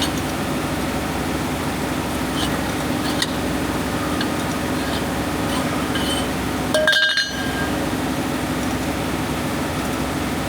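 Light metallic clinks of hand tools working on wheel nuts over a steady mechanical hum, with a louder ringing clink about seven seconds in.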